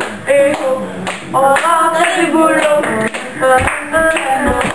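Girls' voices singing together, with hand claps.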